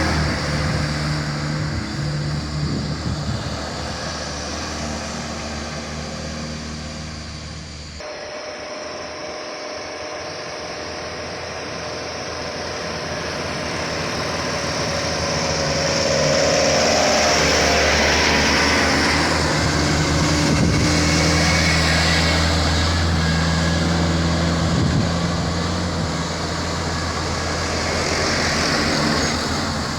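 Heavy diesel vehicle engines running hard under load, heard in two takes with an abrupt cut about 8 seconds in. The second swells to its loudest around the middle and then eases off as it passes.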